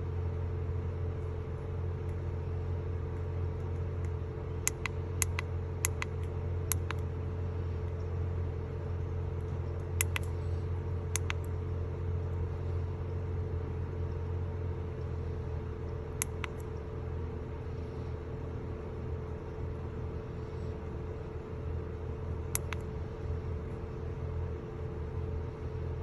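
Infiniti M35's 3.5-litre V6 idling steadily with a low hum, the engine carrying a random multiple-cylinder misfire (code P0300). A few short sharp clicks come and go over it.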